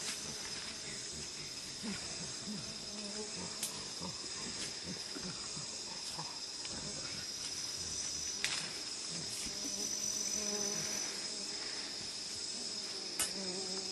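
Steady high-pitched drone of rainforest insects, with a few sharp clicks or snaps scattered through it, the loudest about two-thirds of the way in.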